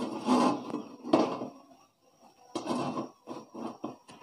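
Steel wok being tilted, swirled and shifted on a gas stove's burner grate, scraping and knocking metal on metal as a little hot oil is run around the pan to coat it. A longer scrape comes first, then a quick run of short scrapes and knocks after about two and a half seconds.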